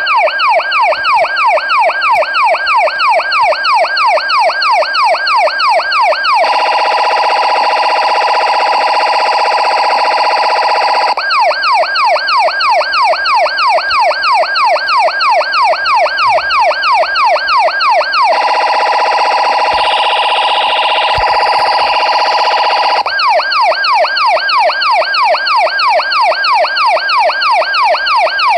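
Electronic police siren: a fast yelp of about three rising-and-falling sweeps a second, switching twice to a steadier held tone for several seconds before the yelp returns.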